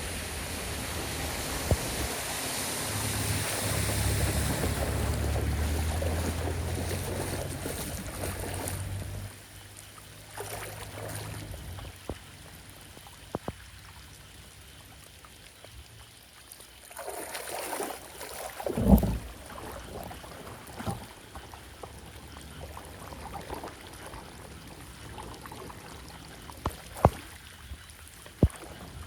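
Floodwater rushing and gurgling into a street drain, with a low rumble, for about the first nine seconds; then it drops to a quieter wash of water with scattered knocks, the loudest a heavy thump about two-thirds of the way through.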